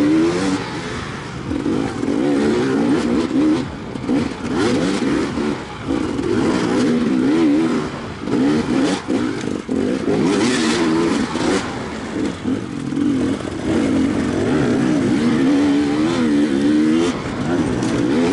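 Enduro dirt bike engine revving hard and dropping off again and again as the throttle is worked over rough ground, with a few sharp knocks and rattles from the bike over the bumps.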